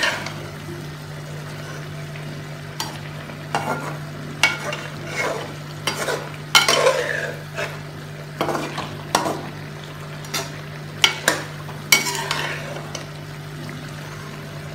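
A metal slotted spoon stirring a cauliflower, potato and ash-gourd curry in an aluminium pot, with irregular scrapes against the pot. The vegetables frying make a low sizzle underneath, and a steady low hum runs throughout.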